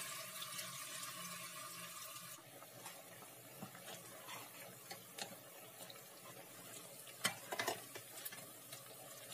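Hot oil sizzling at a low, steady level as vegetable fritters (bakwan) deep-fry in a small metal pot. Light clicks of a spoon knocking against the pot as the fritters are turned, two sharper ones close together about seven seconds in.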